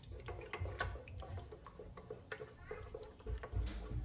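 Spoon stirring a runny mix of water, egg and sourdough starter in a bread machine's metal baking pan: irregular light clicks and scrapes of the spoon against the pan, with a few duller knocks about three and a half seconds in.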